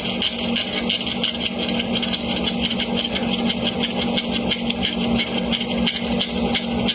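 A machine running steadily: a constant hum with a fast, uneven ticking on top.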